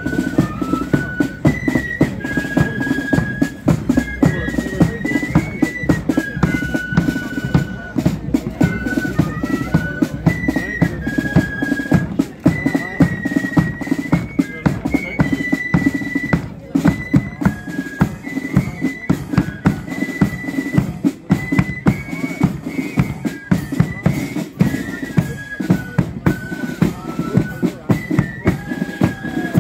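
Marching flute band playing a tune: the flutes carry a single high melody of held notes over bass drum and snare drums beating a steady march rhythm.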